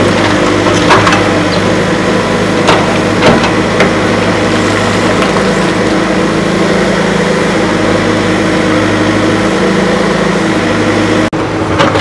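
The diesel engine of a CASE 770 EX backhoe loader running steadily while the backhoe digs. A few sharp knocks from the bucket striking soil and stones come in the first four seconds.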